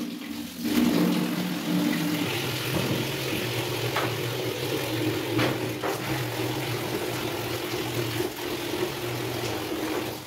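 Water running from a wall tap into a plastic bucket: a steady rush with a low hum, and a few sharper splashes as hands rinse a cloth in the stream.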